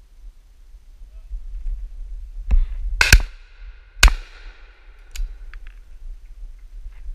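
Several shotgun shots, the loudest a close pair about three seconds in and another about a second later, each trailing off in an echo.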